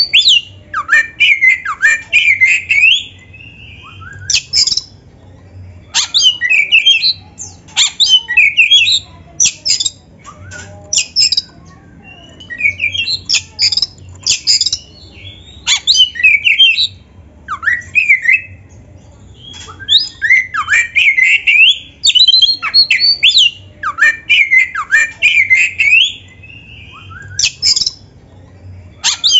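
Oriental magpie-robin (kacer) in full fighting song ('gacor narung'): loud, rapid phrases of sharp notes and quick sliding whistles, in bursts of a second or few with short pauses between.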